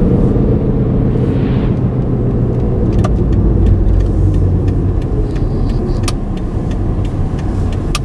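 A car in motion, heard from inside the cabin: a steady low drone of engine and tyre noise, with a few short clicks.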